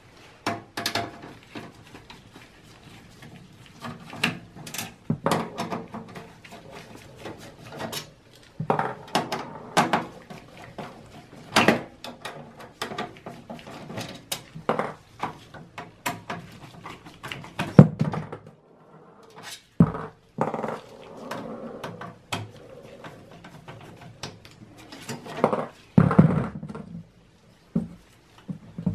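Phillips screwdriver and plastic fan frame clicking, tapping and scraping against a steel computer case as the 92 mm rear system fan is unscrewed and worked loose. The handling noises are irregular, with a few longer, louder scrapes.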